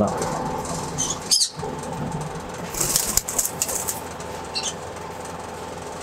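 Caged cockatiels: a brief flutter of wings about three seconds in, with a few short high chirps, over a steady background hum.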